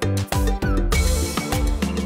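Background music with a steady, quick drum beat over a bass line, with a cymbal wash about halfway through.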